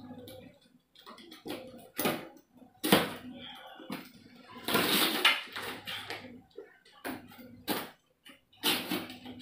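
Utility knife (box cutter) slicing through the packing tape on a cardboard box: a run of short, uneven scraping strokes with cardboard rustling in between.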